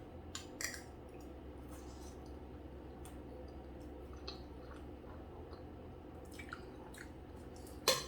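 Soft, wet mouth sounds of someone eating creamy macaroni and cheese: scattered quiet squishy smacks and clicks, with a sharper smack near the end.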